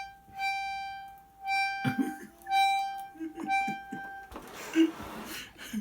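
Accordion sounding the same single reedy note about four times in a row, imitating a car's door-open or seatbelt warning chime. A breathy hiss follows near the end.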